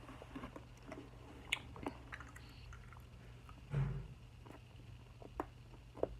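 Soft, wet clicks and squishes close to the microphone, at irregular times, with a dull thump a little before the four-second mark.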